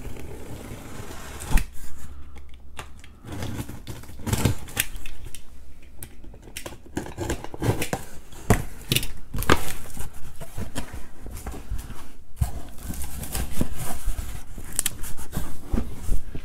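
A cardboard box being opened by hand: fingers picking at packing tape, a box cutter slitting the tape, and the cardboard flaps being pulled open. It comes as a run of irregular scrapes, rips and small knocks.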